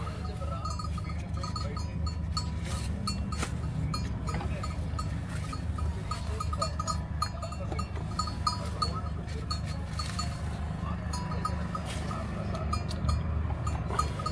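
A cow taking and chewing roti held out to it at a car window. Under it runs the steady low hum of the car's idling engine, with a light, regular ticking.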